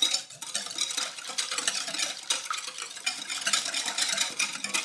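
Wire balloon whisk beating a thin mixture of egg yolks, coffee, milk and sugar in a glass bowl: a rapid, continuous run of wet sloshing strokes with the wires clicking and scraping against the glass.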